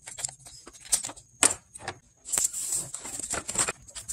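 Locking pliers clicking and knocking on a metal spring hose clamp at the radiator as the hose is worked off its neck, with a stretch of scraping and rustling about two and a half seconds in.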